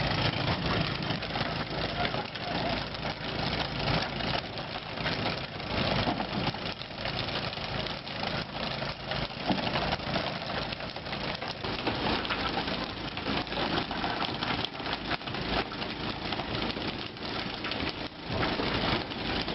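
A fishing boat's engine running under a steady rush of churning water, with frequent knocks as tuna caught on poles slap onto the deck.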